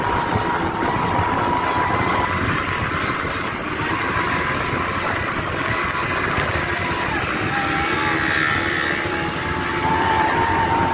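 Quad bike (ATV) engine running at a steady pace while riding across sand, its whine dipping slightly about seven seconds in and rising again near the end, with wind noise on the microphone.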